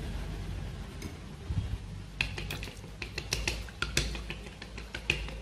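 Wooden chopsticks beating eggs and milk in a glass bowl, clicking against the glass. The clicks start about two seconds in, in quick irregular taps of about three or four a second.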